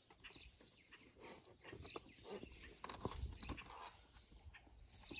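Faint footsteps with scattered light knocks and rustles, a few low thumps about three seconds in.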